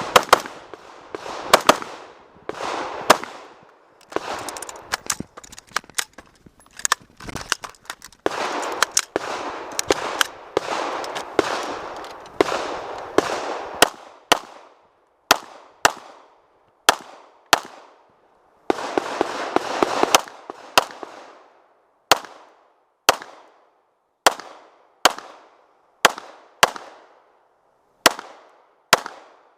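Rifle gunfire in a run of shots: irregular quick strings at first, then in the second half single shots at about one a second, each with a short echoing tail.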